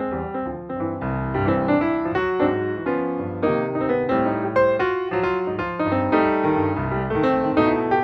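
Background music led by piano, with many quick notes struck in a steady rhythm over low sustained bass notes.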